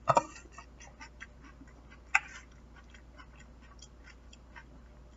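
Eating crispy fried chicken: a loud sudden bite or crunch right at the start and another sharp one about two seconds in, then scattered small clicks of chewing.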